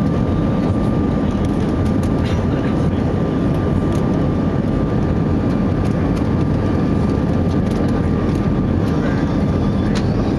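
Cabin noise of an Airbus A320-214 on final approach, heard from a window seat: the steady rumble of airflow and its CFM56-5B engines, with a steady whine that stops with a sharp knock about ten seconds in.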